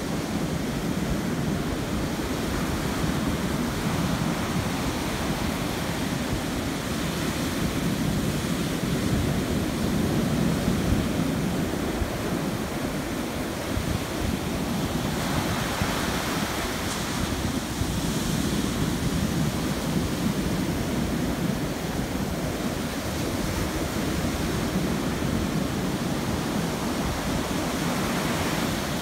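Rough surf breaking and washing up the beach in a steady hiss, with wind rumbling on the microphone; the hiss of breaking water swells brighter about halfway through.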